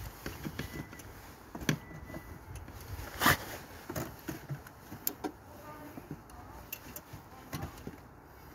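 Irregular clicks and knocks of work in a car's engine bay, with one louder knock about a third of the way in, over the rubbing of clothing against the phone's microphone.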